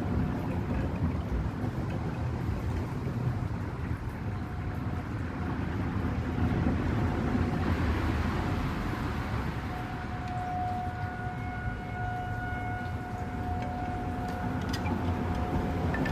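Distant outdoor tornado warning siren sounding a faint, steady tone that comes through clearly about two-thirds of the way in. It lies under a heavy low rumble of wind and traffic, which swells around the middle.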